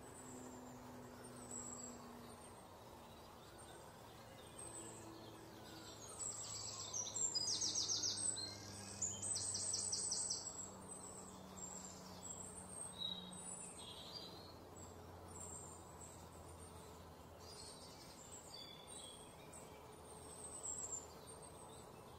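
Outdoor ambience of birds chirping and calling over a faint steady low hum. About seven seconds in, a fast trill of evenly repeated high notes, roughly eight a second, runs for a few seconds and is the loudest part.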